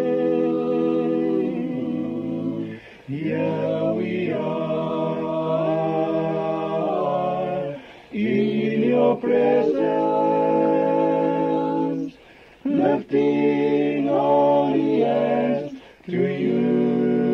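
Male vocal group singing a slow song in harmony, in long held phrases that break off briefly about every four seconds.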